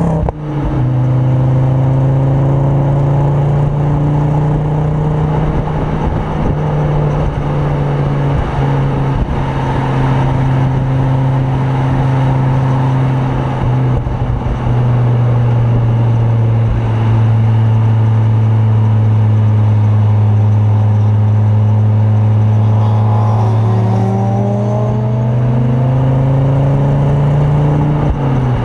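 Ford Focus RS Mk2's turbocharged 2.5-litre five-cylinder engine with a Mountune 420 bhp conversion and full Milltek exhaust, heard from inside the cabin while driven hard on track. The engine note drops sharply just after the start, rises and falls with the throttle through the middle, climbs steadily over the last few seconds, then drops again.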